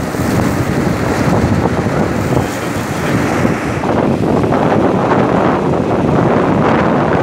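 Wind buffeting the microphone over the steady rumble of coal-unloading machinery at the jetty, the gantry unloader and conveyor belts running.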